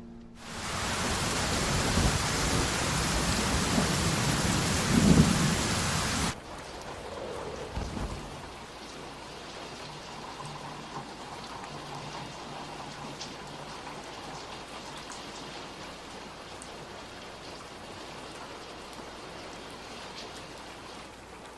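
Heavy rain with low rumbles of thunder, dropping suddenly about six seconds in to quieter, steady rain.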